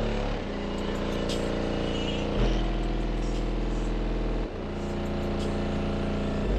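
Deep, sustained bass notes from a car stereo's subwoofers, six DC Audio Level 5 12-inch subs, with a buzzy edge. The pitch steps between a lower and a slightly higher note about every two seconds.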